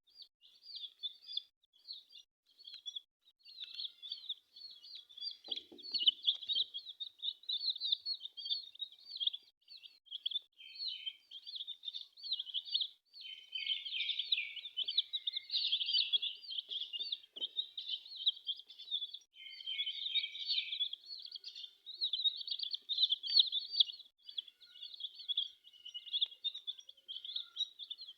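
Many chicks peeping, with short high peeps overlapping in a continuous chorus that grows busier and louder about halfway through.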